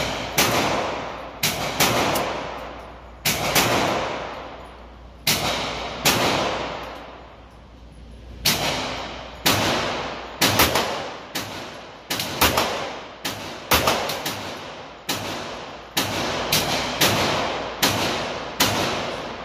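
Handgun shots fired one after another, about twenty of them at uneven spacing, some in quick pairs. Each crack is followed by a long echoing tail from the walls of an indoor range.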